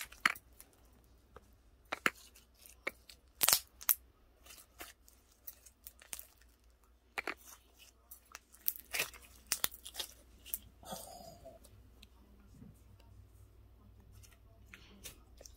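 Slime being worked by hand, giving irregular sharp snaps and clicking pops as air pockets in it burst.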